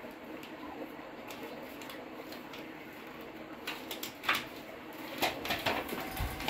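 Magazine pages rustling and crinkling as a monkey handles and tears at them, in short crackles that come thicker and louder in the second half, the loudest a little over four seconds in.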